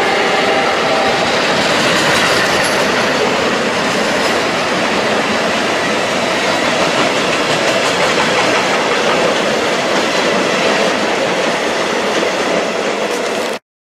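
A train passing through the station at speed: a loud, steady rush of wheels on rail with some clatter, and a few thin steady tones in the first second. It cuts off suddenly near the end.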